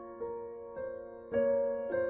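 Background music: a slow, soft piano melody, with a new note struck about every half second.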